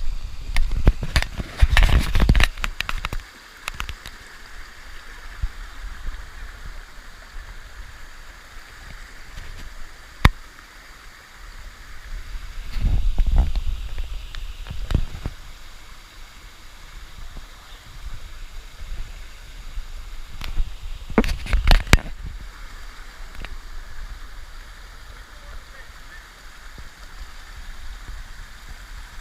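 Steady rush of a flowing stream, interrupted three times by louder stretches of knocks, rustling and low rumble: near the start, about halfway, and about two-thirds of the way in.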